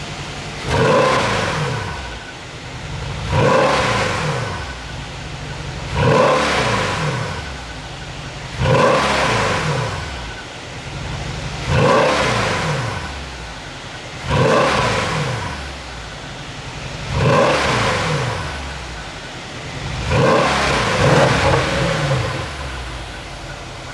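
Mercedes-AMG S63's twin-turbo V8 being blipped repeatedly, about nine sharp revs a few seconds apart, each falling back with the pops and crackles of an overrun 'pop sound' exhaust tune.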